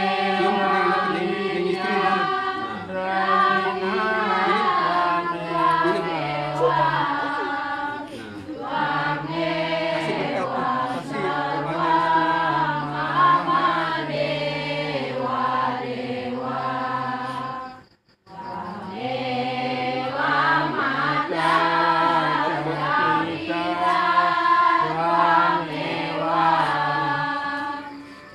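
Voices chanting a slow devotional song with a held low note beneath the melody. It breaks off abruptly for a moment about eighteen seconds in, then carries on.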